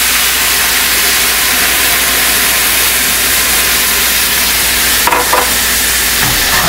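Lemon juice poured into a hot stainless-steel skillet of seared striped bass fillets, sizzling loudly and steadily as it boils off into steam. A short click sounds about five seconds in.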